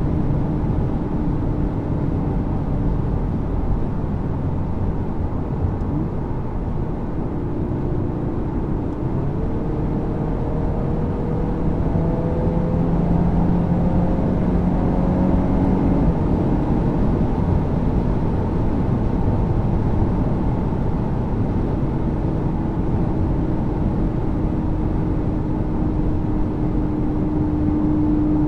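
A 2024 VW Golf R (Mk8) on the move: steady road and tyre rumble with the hum of its 2.0-litre turbocharged four-cylinder underneath. The engine note climbs slowly through the middle and then drops back.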